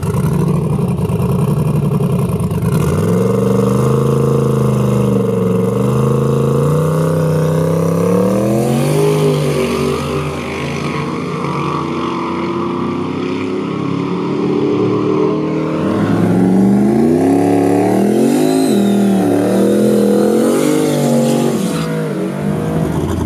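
Turbocharged LS V8 pickup engines at full throttle on a drag strip, the pitch climbing and falling back repeatedly as the trucks rev and shift. Near the end a second truck revs hard with its rear tyres spinning in a burnout.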